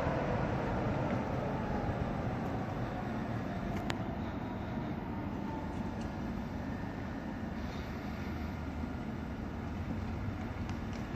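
ED250 Pendolino electric train running past, a steady rumble with a whine that falls in pitch at the start and fades a little. One sharp click about four seconds in.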